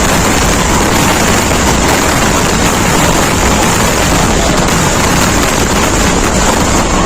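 A dense, continuous barrage of firecracker explosions from a Kerala temple-festival fireworks display, the blasts running together into one loud, steady crackling noise.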